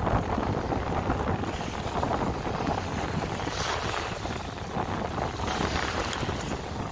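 Wind buffeting the microphone over waves washing and splashing against shoreline rocks, the surf swelling a couple of times.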